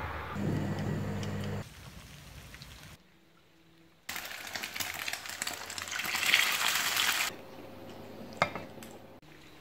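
Clips of ambient sound cut together: a low steady hum, a short near-silent gap, then about three seconds of steady rain hiss on garden plants that stops abruptly, and a single sharp click near the end.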